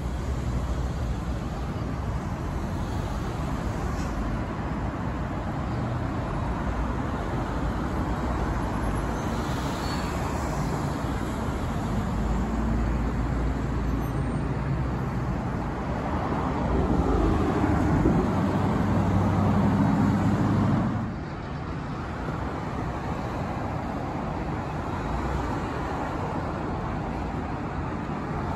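City road traffic: cars and a bus passing on the street below, a steady rush of engines and tyres. A heavier engine hum grows louder for a few seconds past the middle, then drops off sharply.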